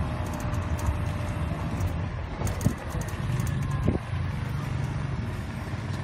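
Ride noise aboard an electric campus shuttle: a steady rumble of tyres on a concrete road, with wind and a low hum. Two short knocks come a little under halfway and about two-thirds of the way through.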